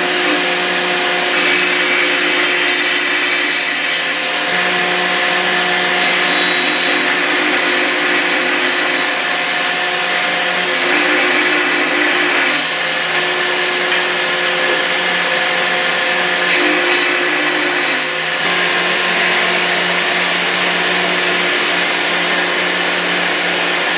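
Festool CMS table saw module running steadily while its blade cuts rebates in MDF drawer parts, its hum shifting in tone several times during the cuts.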